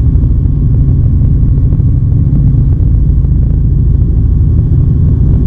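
Steady, loud cabin noise of a Robinson R44 helicopter in flight: a dense low rumble from the piston engine and rotors, unchanging throughout.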